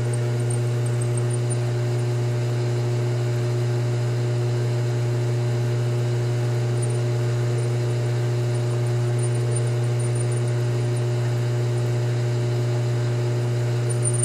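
Metal lathe running steadily at its slowest speed, about 70 RPM, with a low, even hum, as a chambering reamer cuts a .308 Winchester chamber in a rifle barrel.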